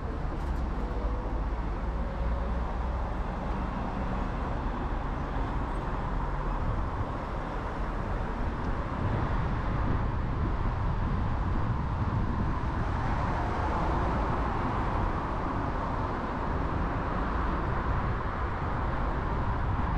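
Road traffic on a wide multi-lane road: cars driving past, a continuous noise of tyres and engines that swells somewhat in the second half.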